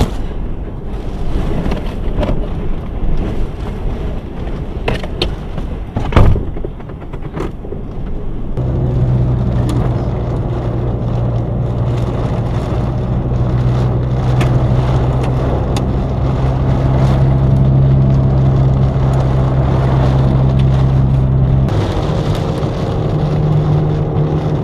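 Clunks and knocks of someone getting into a vehicle, with one loud thump about six seconds in. From about eight seconds a steady low engine and road drone is heard inside the cabin as the vehicle drives off, changing pitch about three seconds before the end.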